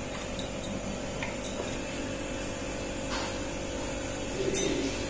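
Washed palak (spinach) leaves being spread out on a cloth by hand: a few faint rustles and light ticks, with a slightly louder brush of handling about four and a half seconds in, over a steady background hum.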